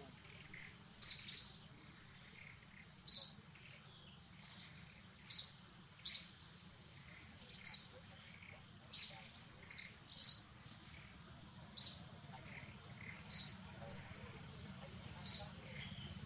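A bird giving short, high chirps, one every second or two and sometimes two close together, over a faint steady high-pitched hum.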